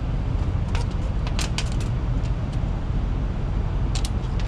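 Steady low rumble of a diesel truck engine idling, with a few light clicks and taps as a tape measure and an LED light bar are handled against the cab.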